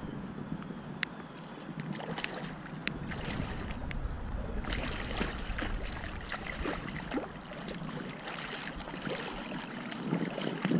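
River water splashing and sloshing at the bank, with wind on the microphone and scattered small clicks; the splashing grows busier about halfway through.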